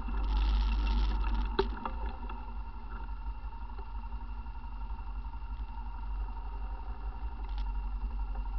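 ATV engine running as it rolls up the trail, then settling to a steadier, quieter idle after about a second and a half, with a single sharp knock as it slows.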